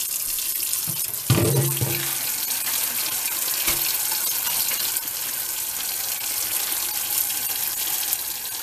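Kitchen faucet running steadily into a stainless steel sink, with a thump about a second in as a plastic colander is set down under the stream, and a smaller knock a couple of seconds later.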